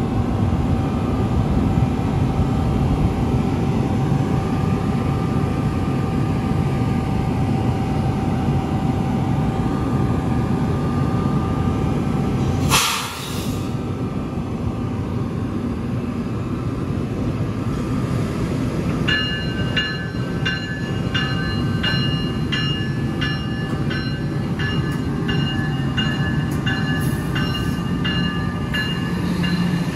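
NJ Transit ALP-46A electric locomotive and its coaches passing over a grade crossing, with a steady low rumble of wheels on the rails. About 13 seconds in there is one sharp crack. From about 19 seconds in, a grade-crossing bell rings in a quick, even rhythm over the train noise.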